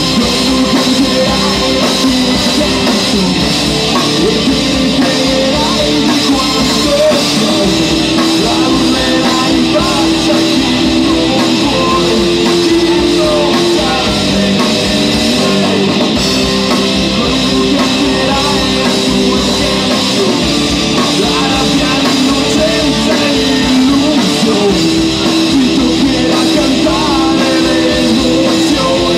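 Live rock band playing loud without a break: electric guitar over a Sonor drum kit.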